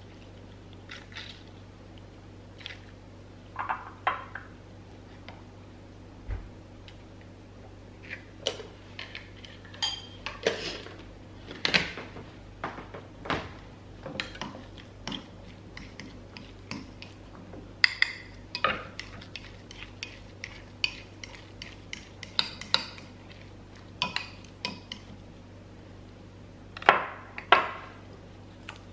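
Metal spoon clinking and scraping against a glass mixing bowl while stirring mashed egg yolk filling, in irregular clinks, with two louder clinks near the end.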